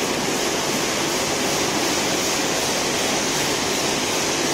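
Steady, even noise of feed-mill machinery running, a constant rush with no distinct knocks or rhythm.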